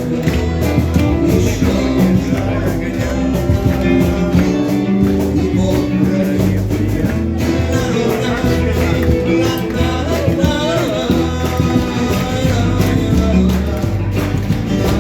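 Live rock band playing an instrumental stretch of a song: guitar over bass and drums with a steady beat.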